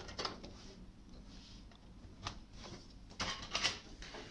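Computer cables being handled inside a PC case: a grey IDE ribbon cable rustling, with scattered light clicks and a cluster of sharper clicks about three seconds in.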